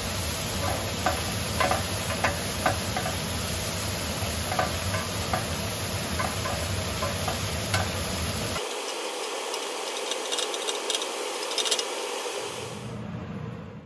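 Broccolini sizzling in a ridged grill pan over a steady hiss, with metal tongs clicking and scraping against the pan as the stalks are turned. A low rumble under it stops about two-thirds through, and a few more light clicks follow.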